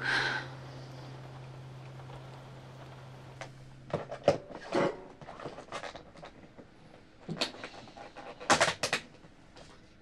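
A short breath, then a low held background-music note that stops about four seconds in. After it come scattered light knocks and clatters.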